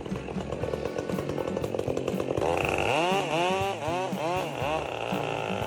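Chainsaw engine revving up and down over and over, its pitch rising and falling about twice a second from about halfway in.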